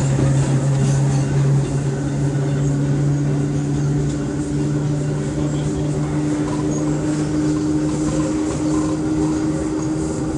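CPTM electric commuter train ER 4417 droning loudly: a strong, steady low hum with a higher tone that slowly rises in pitch.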